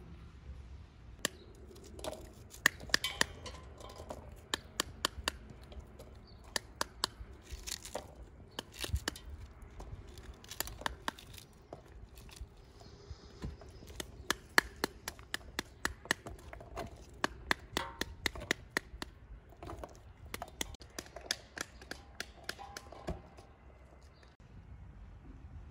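Pomegranates being cut with knives and torn open by hand over an enamel basin: many irregular sharp cracks and crackles of the splitting peel, stopping shortly before the end.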